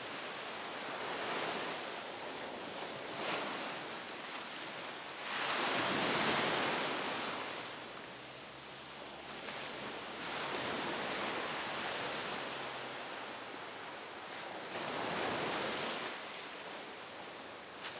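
Surf-like rushing noise that swells and fades about every four to five seconds, the biggest swell about six seconds in.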